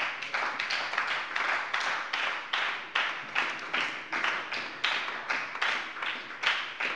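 Applause from a group of parliament members: a fairly even run of hand claps, about three to four a second.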